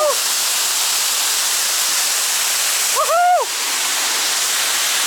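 Burkhan-Bulak waterfall's water pounding down in a steady roar of spray. A person's voice calls out briefly at the start and again about three seconds in.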